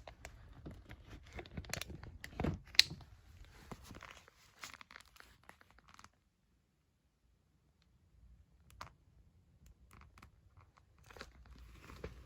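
Packaging being handled and opened: a run of rustles and sharp clicks, the loudest about three seconds in. The sound stops dead for about two seconds in the middle, then comes back as fewer, sparser clicks.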